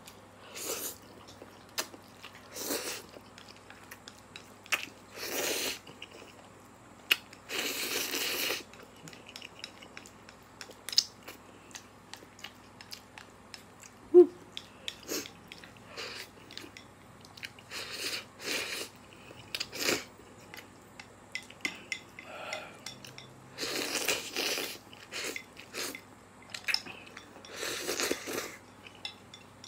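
Close-up eating sounds of a person eating instant noodles with chopsticks: chewing and mouth smacks, with a dozen or so slurps each lasting up to about a second. Chopsticks tap against the ceramic bowl throughout, with one sharp clink about halfway through. Near the end he slurps from the bowl held up to his mouth.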